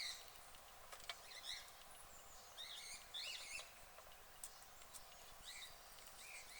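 Birds chirping faintly: short high calls that bend up and down, repeated every half second or so, with a few faint clicks between them.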